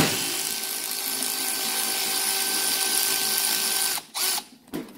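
Milwaukee cordless electric ratchet running steadily for about four seconds, its motor whining as it backs a housing bolt out of a hydraulic steering pump. It cuts off, and a couple of short knocks follow.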